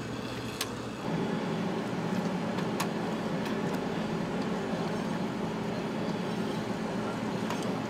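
Steady mechanical hum of running machinery that steps up about a second in and then holds even, with a few faint light clicks of metal parts being handled.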